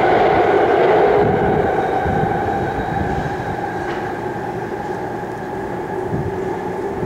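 BART subway train running away down the tunnel, a steady multi-pitched whine over a rumble that fades over the first few seconds.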